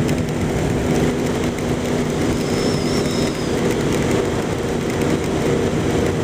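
Motorcycle engine running at a steady cruise, with a constant rush of wind and hiss from the wet road.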